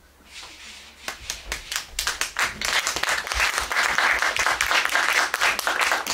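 Audience applauding: a soft rustle and scattered claps about a second in, quickly swelling into steady, dense clapping.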